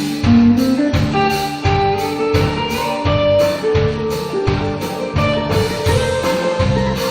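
Live band playing an instrumental passage with no singing: held melody notes over a steady drum beat of about two strokes a second.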